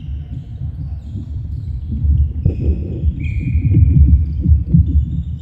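Players' footsteps thudding on a wooden sports-hall floor, with short high shoe squeaks and a low rumble that grows louder in the middle. A brighter high squeak sounds a little after three seconds.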